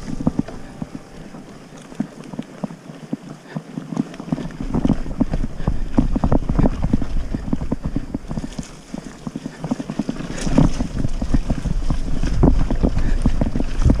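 Mountain bike rattling and clattering over a rough trail, with dense irregular knocks, and wind rumbling on the microphone from about four seconds in and more strongly near the end.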